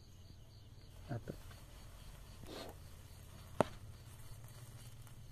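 Crickets chirping steadily and faintly. A soft scrape comes about two and a half seconds in, then one sharp click about a second later, from the charcoal grill's wire mesh being worked.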